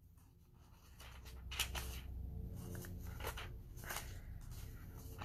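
Faint rustles of Bible pages being turned, a few short strokes over a low steady hum.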